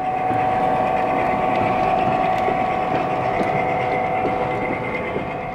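1:29 scale model diesel locomotives running past on the track, a steady whine over a rushing rumble that swells at the start and fades near the end as they go by.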